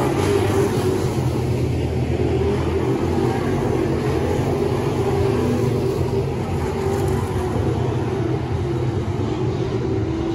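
A pack of dirt late model race cars running at speed on a dirt oval. Their Chevrolet 602 crate V8 engines blend into a steady, continuous drone that rises and falls slightly as cars pass.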